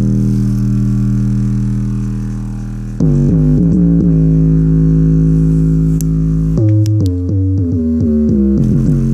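Synthesizer music with a heavy bass line, played loud through a 100 W subwoofer driven by a 20 W TDA2005 amplifier. A held chord changes about three seconds in, and quicker notes start near the end.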